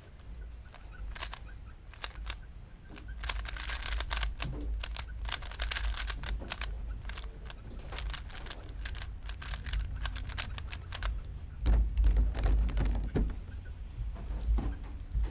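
A plastic 3x3 speedcube being turned quickly by hand, its layers clicking in fast, uneven runs as a memorized solution is carried out blindfolded. About twelve seconds in, louder knocks come as the cube is set down on the mat.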